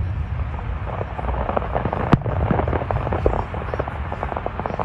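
Aerial fireworks going off: one sharp bang about two seconds in, with a dense run of small crackles and pops around it over a steady low rumble.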